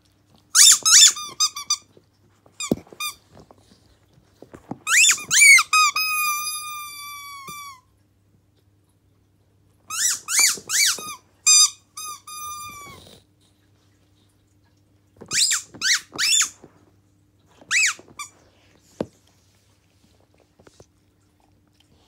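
Rubber pig squeaky toy squeezed in a Siberian husky's jaws: several bursts of quick, high squeaks, and one drawn-out squeak of about three seconds that slowly fades and drops a little in pitch.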